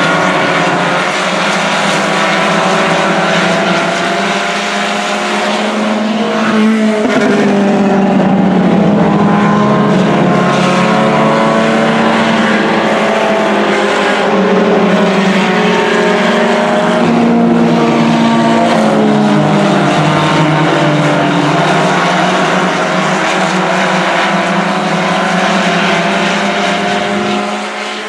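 A pack of IMCA Sport Compact race cars, four-cylinder engines at high revs, racing around a dirt oval. Several engine notes overlap, each rising and falling in pitch as the cars accelerate down the straights and back off for the turns.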